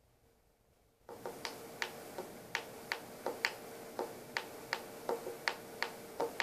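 Metronome ticking evenly, about three clicks a second with some beats accented, starting about a second in over a faint steady hum.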